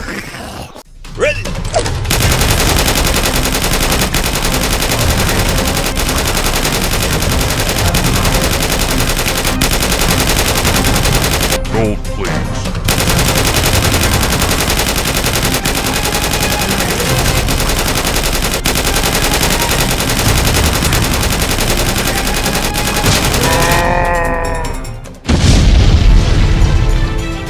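Dubbed rapid automatic-gunfire sound effects, sustained and dense with a short break about halfway, over background music. Near the end a brief voice, then a loud, deep explosion boom.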